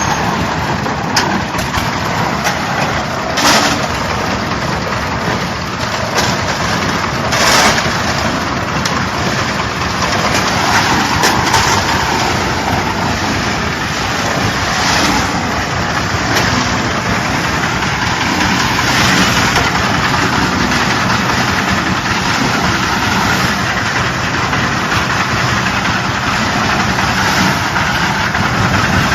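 JZC350 concrete mixer running steadily, a continuous mechanical clatter and rumble, with a couple of louder knocks in the first few seconds.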